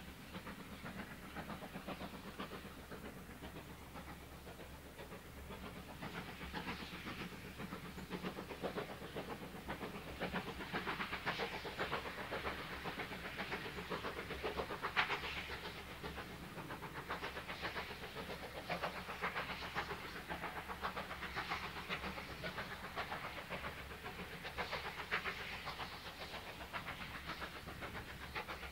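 Steam locomotive hauling a train and working hard, its exhaust chuffing in a rapid continuous beat. The sound grows louder about six seconds in, then swells and dips.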